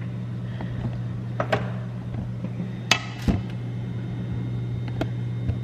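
A few short knocks and clinks of kitchenware being handled while cooking, four in all, over a steady low hum.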